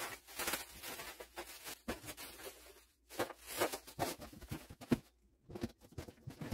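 Plastic shopping bags rustling and crinkling as they are handled and emptied, with a few light knocks as things are set down, around two and five seconds in.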